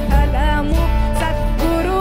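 Live Telugu folk music: a woman singing with gliding, ornamented phrases over an ensemble, with drums keeping a steady beat of about two strokes a second.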